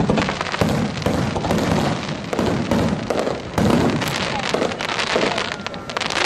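Aerial fireworks shells bursting in quick succession, heavy booms mixed with dense crackling.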